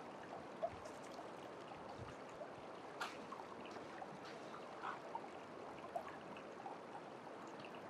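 Shallow river water flowing steadily through and around a sluice box, with small scattered clicks and one sharp knock about three seconds in.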